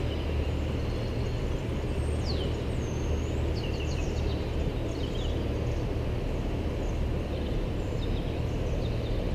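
Steady low drone of a passing river cruise boat's engine, with a few small birds chirping over it.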